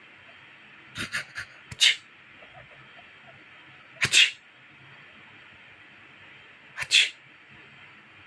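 Sneezing: a quick run of three or four sneezes about a second in, then single sneezes about four and seven seconds in. Each is a short, sharp burst with a smaller one just before it.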